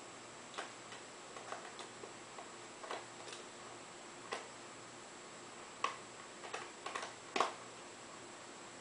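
Scattered, irregular light clicks and taps of a small screwdriver against screws and the laptop's plastic casing while the screen is fitted at the hinge, with a few louder clicks near the end.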